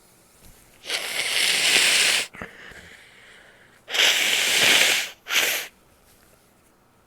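A person forcing air hard out through the nose: two long, hissing blasts of about a second each, then a short third one.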